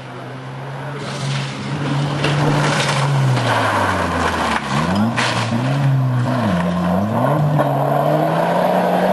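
Rally car engine at high revs on a gravel stage, getting louder as it approaches; the revs drop sharply twice and climb again as the driver lifts off and gets back on the throttle, with gravel and tyre noise underneath.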